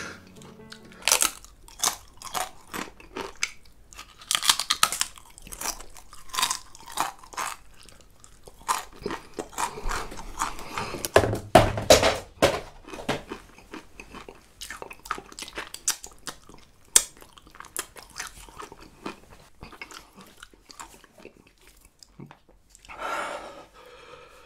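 A person crunching and chewing a crisp black tortilla chip (the One Chip Challenge chip), in many irregular sharp crunches, with a short vocal sound near the end.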